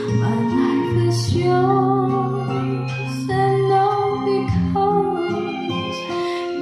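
A song with a woman singing over instrumental accompaniment, played back through the V1 Bluetooth hybrid tube amplifier and its speakers.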